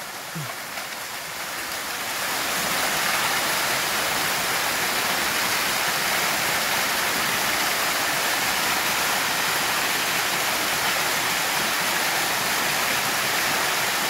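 Waterfall pouring down a rock face, a steady rush of water that grows louder about two seconds in, then holds level.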